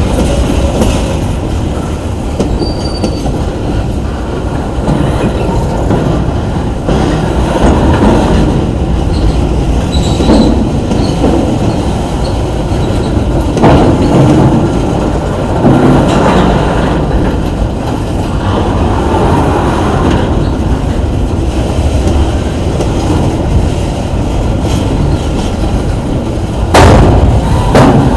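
Intermodal freight cars rolling slowly past on a backing move, with wheels clacking over rail joints and brief faint wheel squeal. A louder burst of noise comes near the end.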